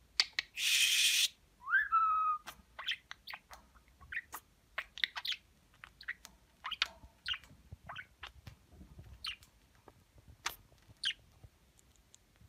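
Male budgerigar chattering: a harsh half-second burst about a second in, a short rising whistle, then quiet scattered clicks and short chirps.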